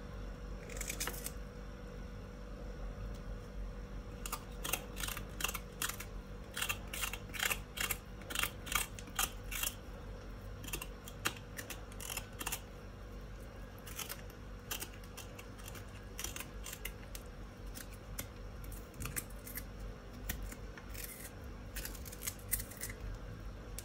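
A small kitchen knife scraping and cutting the skin off a knobbly root tuber held in the hand: a series of short, irregular scraping strokes, over a faint steady hum.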